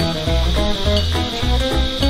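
Background music: a tune of changing notes over a steady, pulsing bass beat.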